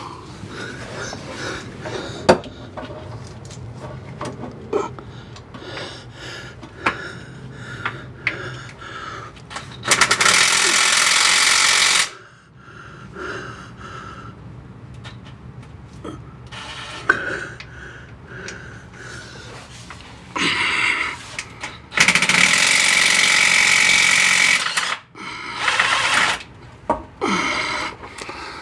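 Power wrench on a long socket extension buzzing hard against a top bellhousing bolt in two long bursts, about two and three seconds long, with a shorter burst just before the second. Between the bursts come scattered clicks and knocks of metal tools.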